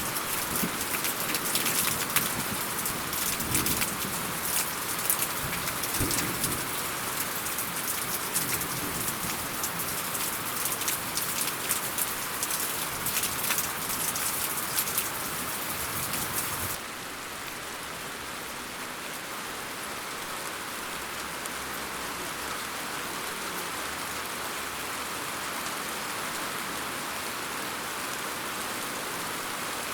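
Rain falling steadily, with many separate drop hits close by for about the first half. Then it switches abruptly to a smoother, slightly quieter, even rain hiss.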